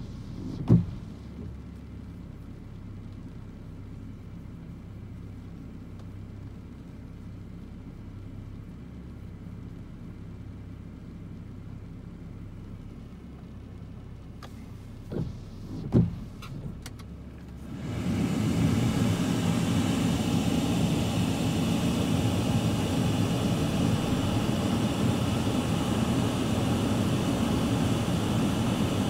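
Inside a car in light rain: the low, steady hum of the car, with a sharp knock just after the start and another pair a little past halfway. About two-thirds of the way through, a loud, steady rushing hiss sets in and stays.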